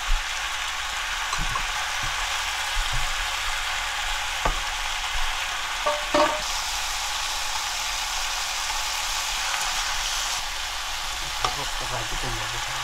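Rehydrated dried squash slices sizzling steadily as they stir-fry in a pan, turned with a spatula and chopsticks, with a few light knocks against the pan.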